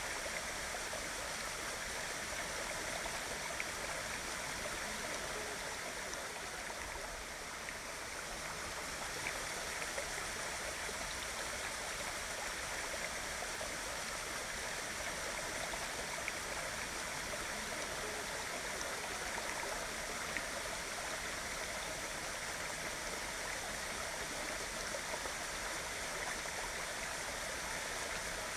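Waterfall: a steady rush of falling and splashing water.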